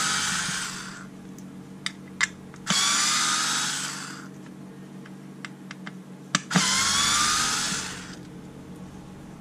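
Black & Decker cordless screwdriver, converted to lithium battery power, running in reverse to back small screws out of a wooden board. It runs in three short bursts a few seconds apart, each starting with a quick rising whine and tailing off, with light clicks in between.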